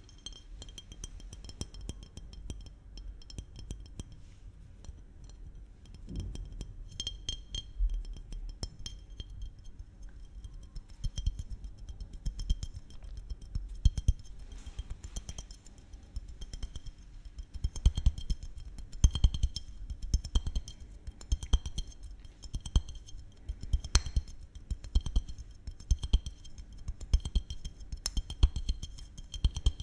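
Fingertips and fingernails tapping quickly on a glass maple-syrup bottle, many light clinks with a faint ringing tone. The taps grow louder and denser from about halfway through.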